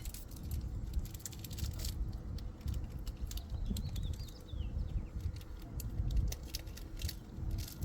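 Scattered light clicks, taps and rattles of metal brake parts and tools being handled at a rear disc brake caliper, over a steady low rumble.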